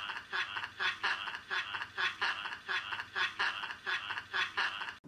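Hearty human laughter, played back from a computer: an even run of short 'ha' bursts, about three a second, that cuts off suddenly near the end.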